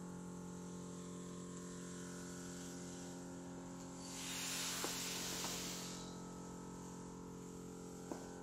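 Steady electrical hum and buzz from the solar installation's power electronics, several fixed tones at once. About four seconds in a rush of hiss swells for a couple of seconds and fades, with a light click in it and another near the end.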